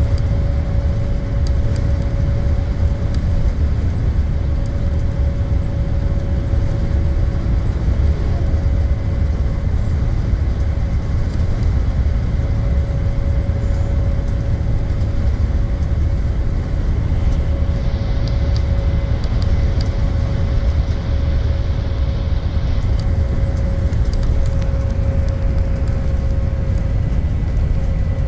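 IC CE school bus cruising at highway speed, heard from inside the cabin: a steady low engine and road rumble with a constant whine over it and light rattles. A short stretch of hiss joins in about two-thirds of the way through.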